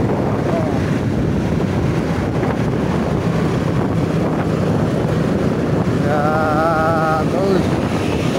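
Wind rushing over the microphone of a moving vehicle, mixed with steady road noise. About six seconds in there is a brief wavering pitched sound.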